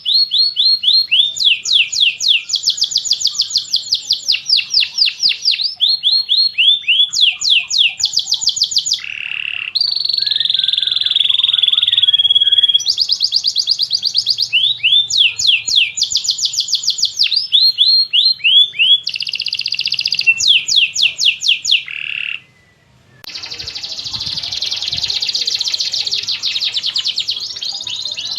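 Domestic canary singing a long song: rapid trills of quickly repeated sweeping notes, one trill giving way to the next every second or two, with a short break a little after two-thirds of the way through followed by a dense, fast warble.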